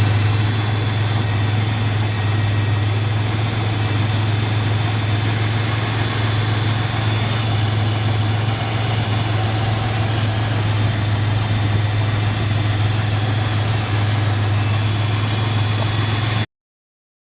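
1991 Ford Ranger pickup's engine idling steadily with a strong low hum, cutting off suddenly near the end.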